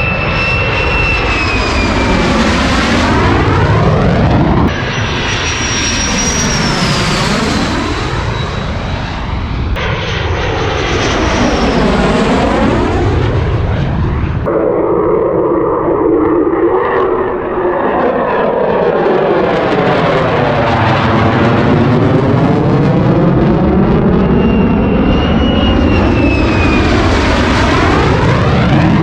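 Fighter jets (F-35, F-16 and Mirage F1) making low passes in a string of edited clips. In each pass the jet engine noise swells and fades, and a high whine falls in pitch as the aircraft goes by. The clip changes abruptly about 5, 10 and 14 seconds in, and the last pass runs the longest.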